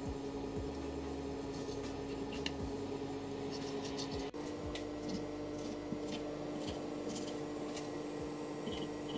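Soft background music of sustained chords that changes chord about four seconds in, with faint scattered clicks of a kitchen knife cutting through dough against a countertop.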